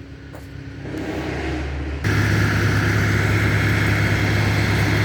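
An engine builds for about two seconds. Then, with an abrupt jump, a loud engine-driven machine runs steadily with a strong low hum.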